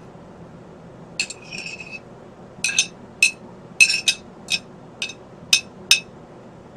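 Hard kitchenware clinking and tapping together: about ten sharp clinks at uneven spacing, some with a short ring.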